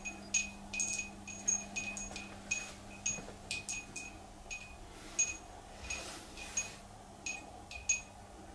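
Short, high metallic pings like small chimes, repeating irregularly about two to three times a second, over a faint steady electrical hum.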